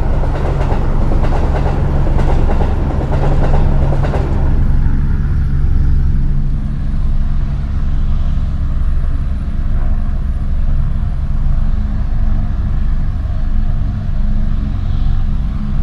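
A heavy vehicle running: dense rattling clatter for the first four and a half seconds, then settling into a steady low rumble with a low hum.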